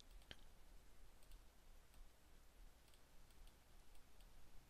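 Near silence with a few faint computer mouse clicks: one sharper click just after the start and softer ones later on.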